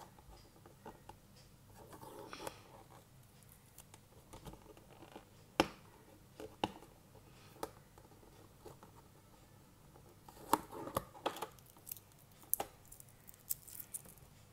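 Cardboard packaging being handled and opened: faint scraping and rustling of the box sleeve, with scattered sharp clicks and taps, getting busier for the last few seconds.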